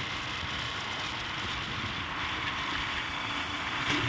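Steady rush of wind and road noise from riding a motorcycle along a paved road.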